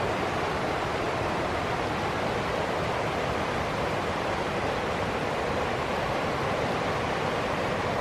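Steady rushing water: an even, unbroken hiss with no swells or breaks.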